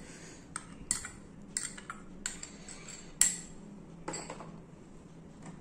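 A steel spoon and glass and steel bowls clinking and tapping as coriander leaves are spooned into a steel mixer-grinder jar: about seven short, separate clinks, the loudest a little past three seconds in.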